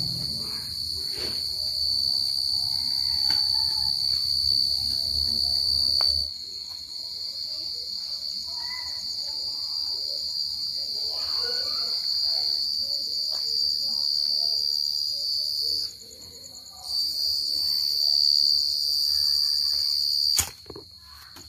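Field cricket (dế mèn) singing close to the microphone: the male's calling song, a loud, continuous, high-pitched chirping trill. It drops in level about six seconds in, briefly fades around sixteen seconds, and falls off after a click near the end.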